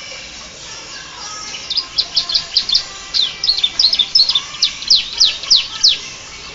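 Domestic canary singing a song laced with bar-winged prinia (ciblek) phrases: soft warbling, then, from about a second and a half in, a fast run of loud, sharp downward-sweeping chirps, several a second, that stops shortly before the end.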